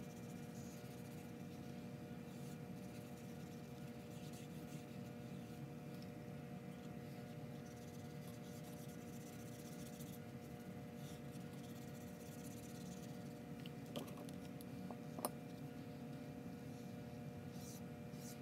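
Faint strokes of a small paintbrush dragging paint across sketchbook paper, over a steady background hum, with two light taps a little past the middle.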